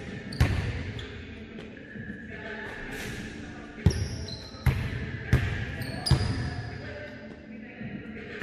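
Basketball shootaround on a hardwood gym floor: the ball bounces sharply several times, about once a second through the middle, with short high sneaker squeaks in between. Each impact echoes in the large gym.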